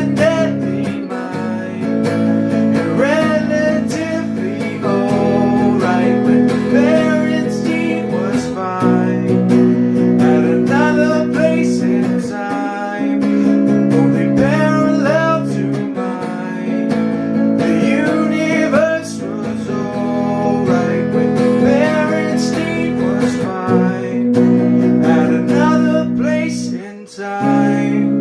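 Acoustic guitar strummed in chords that change every second or two, with a voice singing over it.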